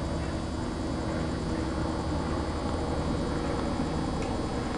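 Steady outdoor background din: an even hiss over a constant low hum, with no distinct events.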